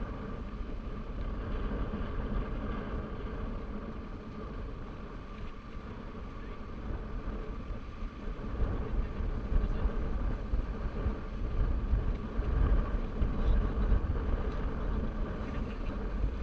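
Motorcycle engine running steadily while riding, with low wind rumble on the microphone that grows louder and gustier about halfway through.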